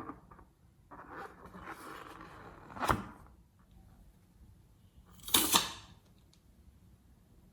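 Close-up sticky handling noises of slime being worked by hand: a soft rustle, a sharp pop about three seconds in, and a louder half-second crackling squish a couple of seconds later.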